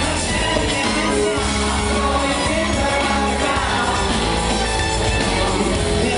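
Live funk-rock band performance: a driving electric bass line under a male lead vocal, loud and continuous.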